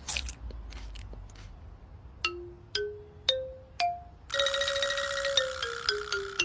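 Xylophone-like mallet notes: four single struck notes stepping up in pitch, then a fast rolled run of notes stepping back down. A few light clicks and rustles come before the notes.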